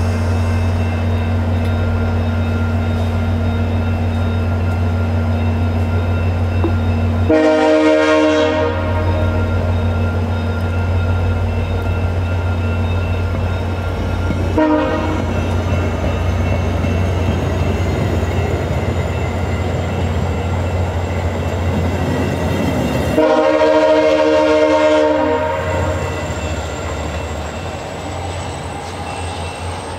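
VIA Rail F40PH-2 diesel locomotive pulling a passenger train out of the station, its engine giving a steady low drone under the rumble of the rolling coaches. The locomotive horn sounds twice: a blast of about a second and a half about seven seconds in, and a longer one of about two seconds some twenty-three seconds in. A single sharp knock comes about fifteen seconds in, and the sound fades a little near the end as the train draws away.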